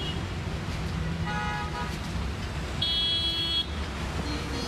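Steady rumble of road traffic moving through a flooded street, with a car horn sounding briefly about a second in and a louder horn honk about three seconds in.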